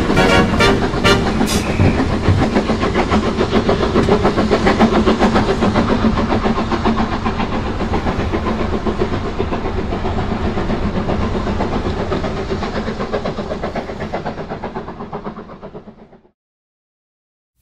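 Steam locomotive running at speed, its exhaust chuffing in a quick, even rhythm, with a few sharp clanks at the start; the sound fades away near the end.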